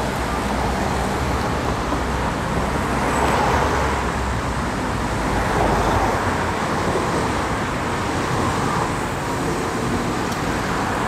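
Road traffic running close by: cars passing in a steady wash of engine and tyre noise, louder as vehicles go by at about three and a half and six seconds in. Late in the stretch a single-car Fukui Railway 800-series tram rolls past on its street track, blended into the traffic noise.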